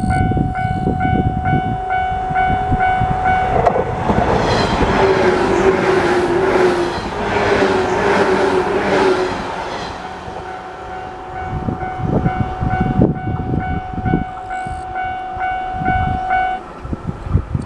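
Japanese level-crossing warning bell ringing in a steady repeating clang. A JR 115 series electric train passes through the crossing from about 4 s to 10 s in, its noise covering the bell, before the bell rings on alone and stops near the end.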